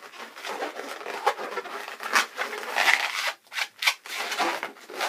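Latex modelling balloon squeaking and rubbing under the fingers in irregular bursts as a partly inflated round balloon is pinched and twisted to form a small sidewall bubble.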